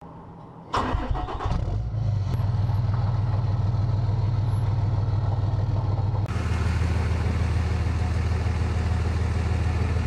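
A diesel truck engine cranks and starts about a second in, then idles steadily. The sound turns noisier about six seconds in.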